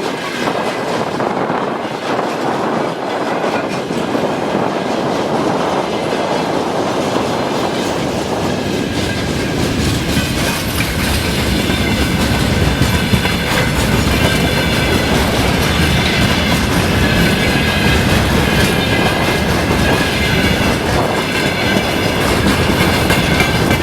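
Train passing close by on the track, its wheels clattering over the rail joints, with a thin high whine over the steady rumble.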